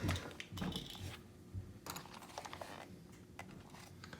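Scattered light clicks and knocks of a plastic RC car chassis being handled and turned over by hand.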